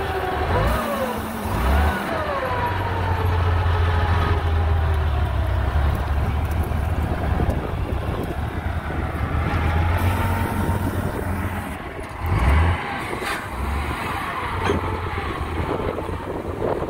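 Komatsu GD625A motor grader's diesel engine running steadily under load as the grader moves with its blade cutting through grass and soil, with a whine that rises and falls above the engine note.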